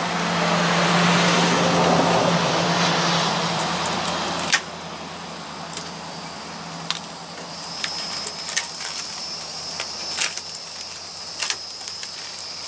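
A few sharp, separate clicks from a headlight aiming adjuster being turned with a screwdriver. They follow about four seconds of loud rushing noise with a low hum. A steady high-pitched tone comes in about halfway through.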